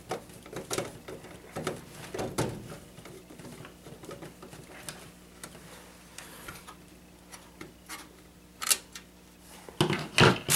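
Mounting screws being fitted by hand into the steel 5.25-inch drive bay of a PC case to hold an optical drive, making scattered light clicks and metallic taps. A sharper cluster of clicks comes near the end.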